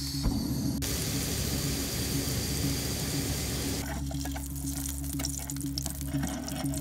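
Gas canister stove burner lit and burning with a steady hiss. About four seconds in, it gives way to butter sizzling and crackling in a hot frying pan. Background music plays underneath.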